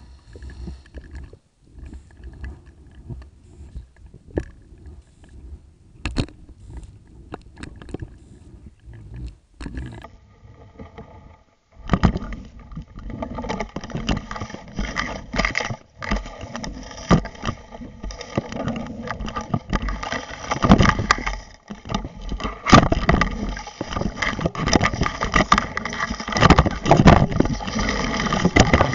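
Underwater recording of water noise and jostling around a submerged camera rig, with scattered clicks and knocks. It turns much louder and busier about twelve seconds in, with frequent sharp knocks.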